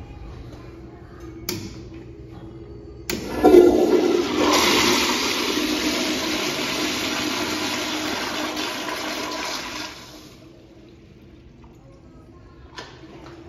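Commercial toilet with an overhead flushometer valve flushing. A click comes first, then about a second and a half later a sudden loud rush of water through the American Standard bowl that lasts about seven seconds before dying away. A second click comes near the end.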